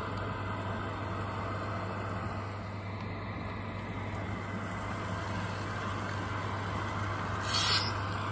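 Digital sound decoder in a Bachmann HO-scale model streetcar playing tram running sounds through the model's small speaker: a steady motor hum, with a short hiss of air near the end.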